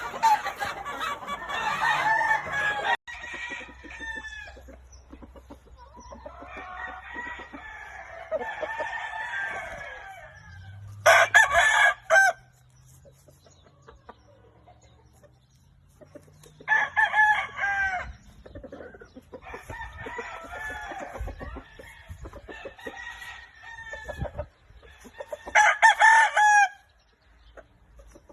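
Gamefowl roosters crowing, with three loud crows standing out about a third of the way in, past the middle, and near the end, and other chickens clucking and calling between them.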